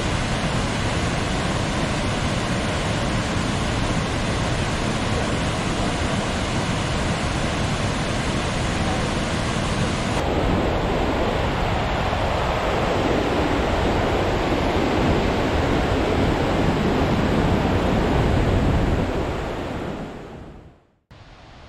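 Waterfalls and white-water rapids of the Iguaçu (Iguazu) Falls, a steady dense rushing of water. It fades out near the end.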